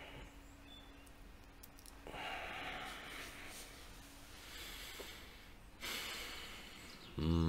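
A man breathing in and out deeply, several long, noisy breaths, then near the end a loud, low, steady vocal drone begins: a warm-up to bring out his deep voice.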